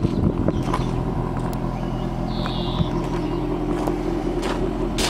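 Jaguar XF R-S's 5.0-litre supercharged V8 idling steadily, with a few light clicks over it.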